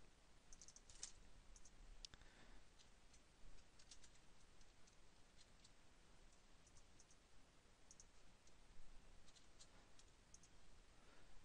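Faint clicks of a computer mouse and keyboard, coming in small scattered clusters over near-silent room tone.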